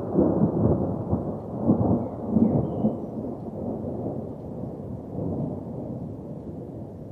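Rolling thunder: a low rumble that swells a few times in the first couple of seconds, then dies away gradually.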